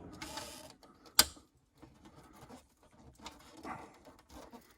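Metal oven door hinge and hand tools clicking and scraping as the hinge's spring-loaded lever is worked out, with one sharp click about a second in and faint small clicks after it.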